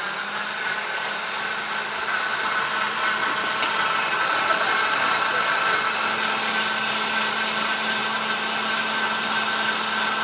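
Countertop blender running on its liquefy setting, puréeing cashews and water into a smooth sauce: a loud, steady motor whine over a low hum.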